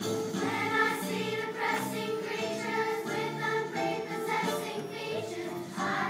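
A group of young girls singing together over an instrumental accompaniment.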